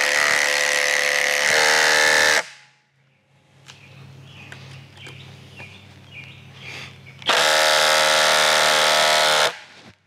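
Cordless drill driving a long screw into a tough oak slab, its motor whining at a steady pitch. It runs for about two seconds, stops, then runs again for about two seconds near the end. The screw ends up stripped.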